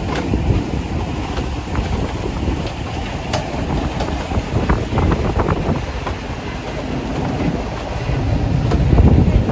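Ride on a tractor-drawn wagon: a steady low rumble with rattling and clatter, swelling louder near the end.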